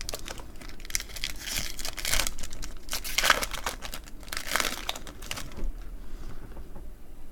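Foil trading-card pack wrapper crinkling and tearing as it is opened by hand, in a run of crackly bursts that die down near the end.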